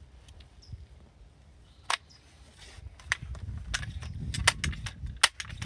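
Gamo M4 TAC .177 multi-pump pellet rifle being loaded and pumped: a single sharp click about two seconds in. Then, from about three seconds in, the pump lever is worked, each stroke ending in a click, roughly one every 0.7 seconds, over a low rustle of handling.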